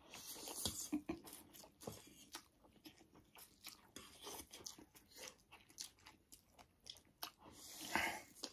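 Close-up mouth sounds of people eating spicy instant noodles: chewing and biting, a run of short, irregular smacks and clicks, with a louder burst about 8 seconds in.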